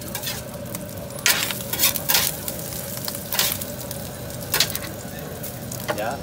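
Kokoreç, spit-roasted lamb intestines, sizzling at the grill, broken by about half a dozen sharp metal scrapes and clacks of the cook's knife against the spit and the steel griddle.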